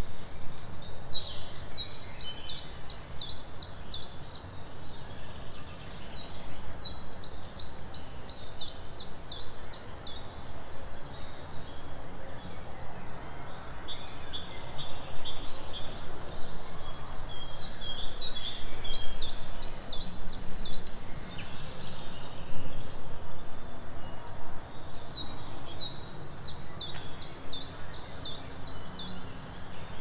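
Forest songbirds singing: one bird repeats a high, fast run of quick notes two to three seconds long, four times, with another bird's shorter notes in between. A steady low rumble of background noise runs underneath.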